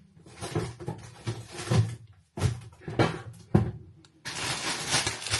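Grocery packaging being handled: a run of short knocks and rustles as items are picked up and set down, then continuous crinkling of plastic packaging from about four seconds in.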